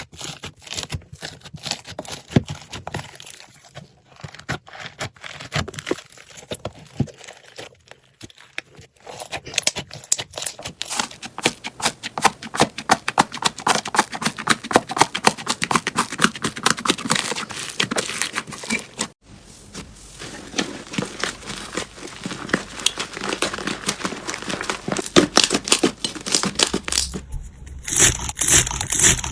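Slime being squeezed and pressed by hand, giving a dense run of small crackling and popping clicks that grows busier toward the middle. It breaks off abruptly about two-thirds through, then starts again.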